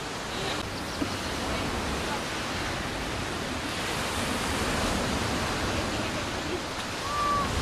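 Steady rushing noise of sea surf and wind, swelling about halfway through.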